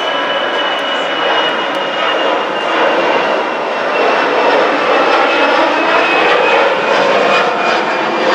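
Twin-engine Airbus A320-family jet airliner climbing out after takeoff: a steady jet roar with a thin high whine that slowly falls in pitch, growing slightly louder about halfway through.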